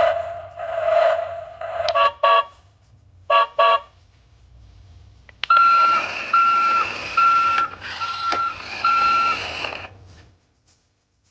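Battery-operated toy truck playing its electronic sound effects: the end of a jingle, two double horn honks, then a recorded engine noise with five evenly spaced beeps over it, which cuts off about ten seconds in.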